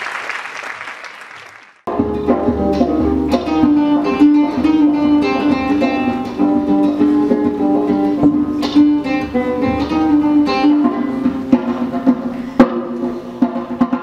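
Applause fading out, then about two seconds in an abrupt switch to acoustic guitar music: plucked notes over a held low note, with a few sharp drum strikes.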